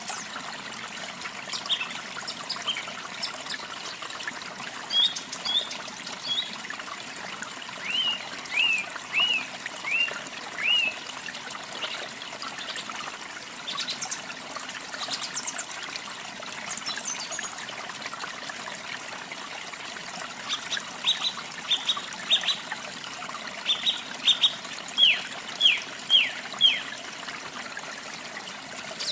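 Steady trickle of running water, with a small songbird calling over it: a run of about five short down-slurred chirps about a third of the way in, and a longer series of sharp chirps near the end.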